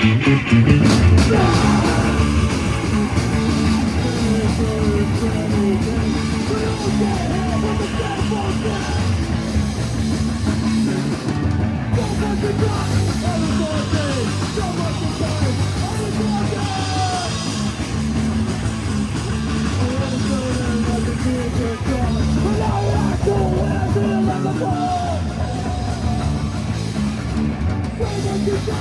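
Live punk rock band playing loudly and without a break: drums and amplified instruments, with a voice singing over them.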